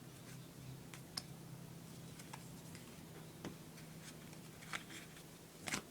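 Faint scattered clicks and taps, about six of them, of trading cards being handled and set down, over a faint steady low hum.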